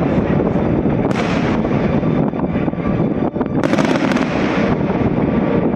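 Aerial firework shells bursting in quick succession over a continuous rumble and crackle. There are sharper bangs about a second in and again a little before the four-second mark.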